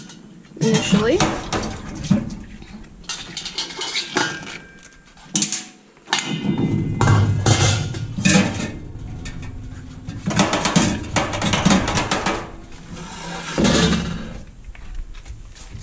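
Stainless steel Surge milking machine parts clanking and knocking against each other and a steel sink as they are handled and set in to soak, with many sharp knocks spread through.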